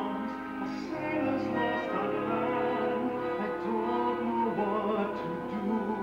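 Musical-theatre orchestra playing with a sung vocal line over it, in long held, wavering notes, recorded from the audience of a live stage performance.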